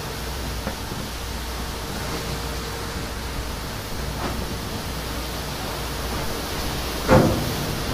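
A ship breaking through pack ice: a steady rushing noise over a low engine drone, with scattered knocks of ice against the hull and one loud thud about seven seconds in.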